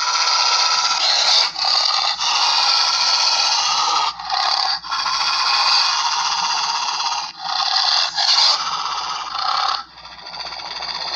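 Raspy, rattling growl sound effects, snarl-like and animal-style, one after another in long stretches broken by short gaps. The last one starts quieter and builds.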